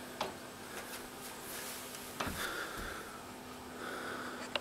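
Quiet small-room tone with a faint steady hum, broken by a sharp click just after the start, a soft low thump a little after two seconds, some breathy noise, and a couple of small clicks at the end.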